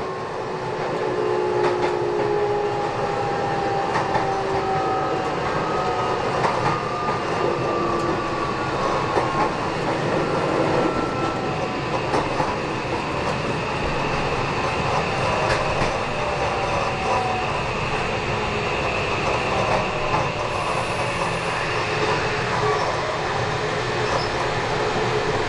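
Kobe Electric Railway Arima Line train heard from inside the passenger car: a steady running rumble with clicks over rail joints and squealing wheels. Several thin squeal and motor tones fall slowly in pitch over the first half, as the train slows for the station it has just announced.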